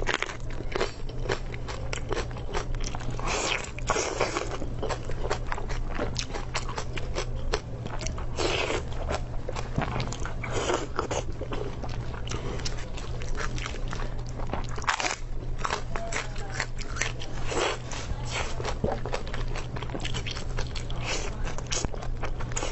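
Close-miked eating: bites, crunches and wet chewing of lettuce leaves and braised pork, as many irregular crunching clicks.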